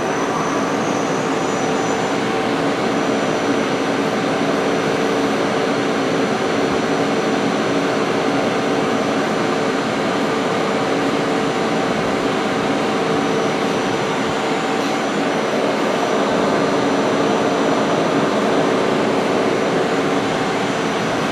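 Hardinge Quest CNC lathe running under power: a steady mechanical whir and hiss with several hum tones and a faint high whine, unchanging throughout.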